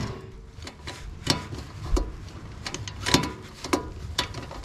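Hand pop-rivet gun worked stroke by stroke, a series of irregular sharp metallic clicks, some with a short ring, as a blind rivet is set through the aluminum catalytic converter shield.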